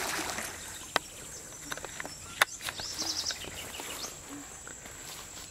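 The splash of a hooked pirarucu thrashing at the surface dies away in the first half second. It leaves outdoor ambience: a steady high insect whine, a few bird chirps, and two sharp clicks, about one and two and a half seconds in.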